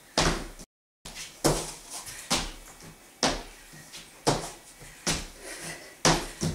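Feet and hands thudding on the bedroom floor during burpees, about one landing a second. The sound drops out completely for a moment just under a second in.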